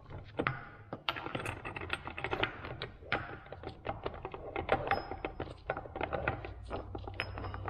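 Rapid metallic clicks and clinks of a Muncie four-speed transmission's steel gears and mainshaft knocking against each other and the aluminum case as the gear assembly is worked through the case opening by hand, some clinks ringing briefly.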